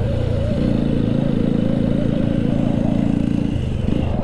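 Motorcycle engine running under way, its note stepping up about half a second in and dropping briefly near the end, with wind noise on the riding camera's microphone.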